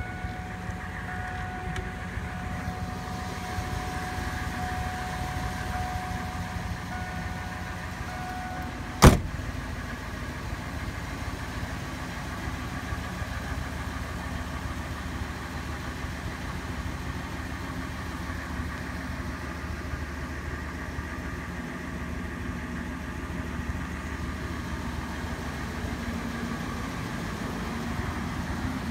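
The van's Triton V8 engine idling steadily, with a door slamming shut once about nine seconds in; a steady tone heard until then stops when the door shuts.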